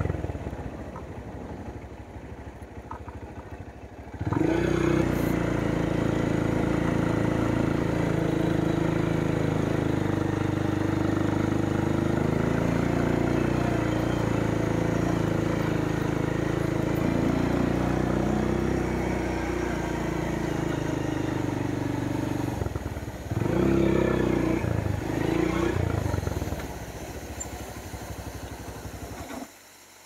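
Motorcycle engine running low for the first few seconds, then riding along steadily, with a brief surge of throttle a little past two-thirds of the way in. It eases off again and cuts off suddenly near the end.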